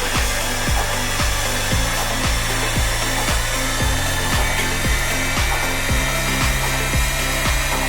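Background music with a steady beat: a low kick about twice a second over a shifting bass line, with a dense, noisy top.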